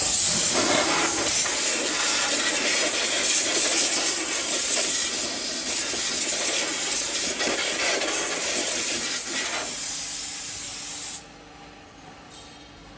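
Compressed-air blow gun on a red air hose blasting in one long loud hiss that wavers in strength, then cuts off abruptly about eleven seconds in.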